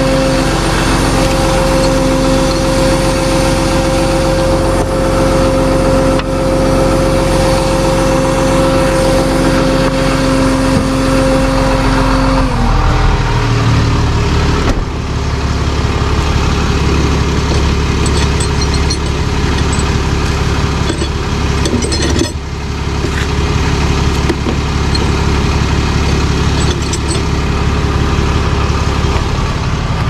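Tow truck engine running steadily with a high whine over it. About twelve seconds in the whine falls away, leaving a lower steady engine drone.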